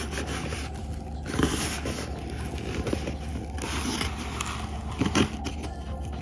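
Cardboard scraping and crinkling as the perforated tab strip on a plastic-wrap box lid is pulled out by hand, in several short strokes.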